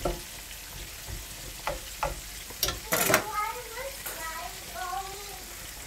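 Chicken wingettes sizzling as they fry in hot oil, with metal tongs clicking against the pan as the pieces are turned and a louder clatter of the tongs about three seconds in.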